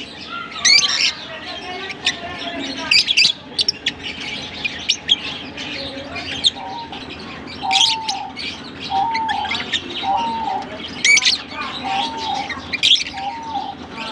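A flock of Fischer's and masked lovebirds chirping and chattering, with many sharp, shrill chirps scattered throughout. From about halfway through, a lower, hooked call repeats about once a second beneath the chirps.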